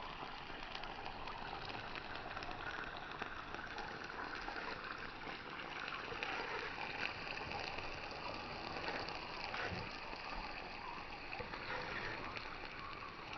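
Burger frying over a campfire, sizzling steadily with many small crackles and pops.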